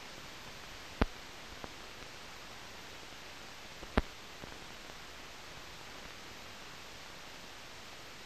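Steady hiss of an old optical film soundtrack with no programme sound on it, broken by a few sharp clicks, the loudest about a second in and about four seconds in: surface noise from dust and scratches on the film.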